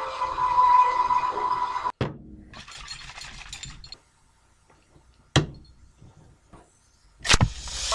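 Background music that cuts off about two seconds in, followed by handling of an aluminium soda can: faint rustling, a sharp metallic click about halfway through and a louder knock near the end.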